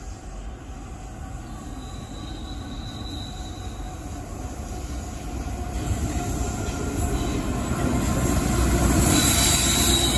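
Pacific National diesel locomotive 9322 approaches with a passenger train, its engine and wheels rumbling and growing steadily louder. Its wheels squeal as the train rounds the curve, faintly at first and loudly near the end as the locomotive draws level.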